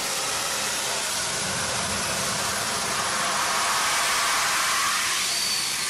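Flyboard Air's jet turbines running steadily as it hovers, a constant rushing jet noise.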